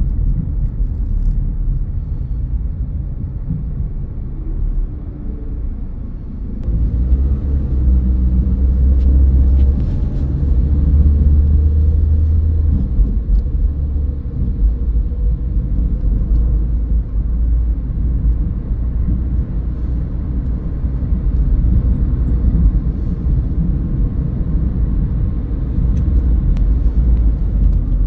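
Car driving on the road: a steady low rumble of tyre and engine noise that grows louder about six and a half seconds in and stays up.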